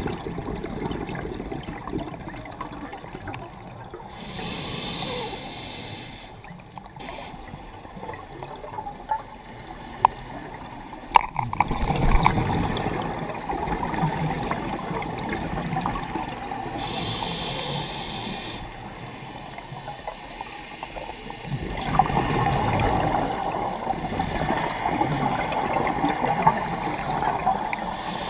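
Scuba regulator breathing heard underwater: two hissing inhalations, with long spells of bubbling, gurgling exhaust between them. Two sharp clicks about ten and eleven seconds in.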